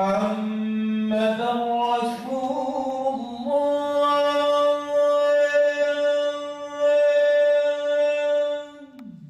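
A man's solo voice chanting Quranic recitation as imam leading the congregational prayer. A few short melodic phrases give way to one long held note of about five seconds, which dips in pitch and stops just before the end.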